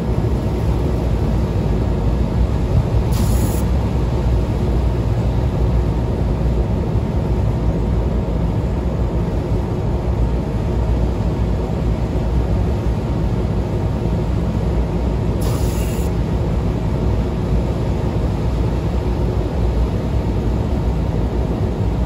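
Steady low mechanical drone of rooftop exhaust fans running, with two brief hisses about 3 seconds and 15 seconds in.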